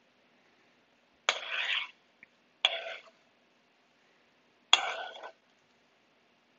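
Metal tongs working in a skillet of saucy shrimp, dropping the shrimp onto a plate: three short clattering, splatting sounds a second or two apart.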